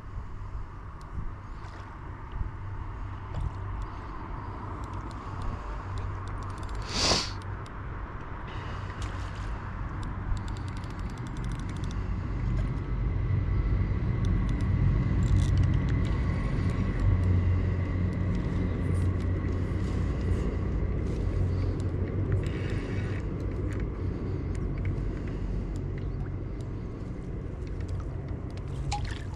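Fishing reel being wound with light ticking as a hooked salmon trout is played toward the landing net, over a steady low rumble that swells in the middle; one sharp click about seven seconds in.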